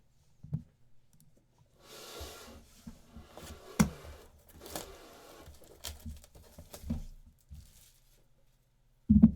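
A box of trading cards being torn open: its wrapping tears and crinkles in several bursts, with small knocks. A louder thump comes near the end.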